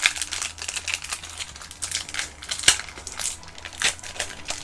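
Foil wrapper of a Pokémon Obsidian Flames booster pack crinkling as it is handled and opened, in a run of short, irregular crackles.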